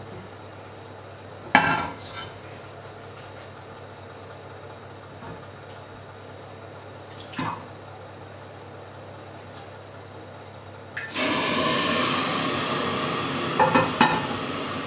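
A couple of sharp clanks of pots and lids being handled, then about eleven seconds in a steady sizzling hiss starts suddenly as steam billows up from the stove.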